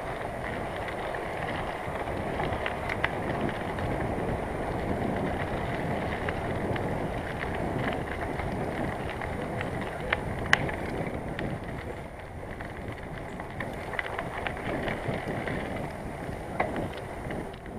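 Bicycle being ridden over a rough path: steady tyre noise with wind on the microphone, and scattered sharp knocks and rattles from the bike, the loudest about ten seconds in.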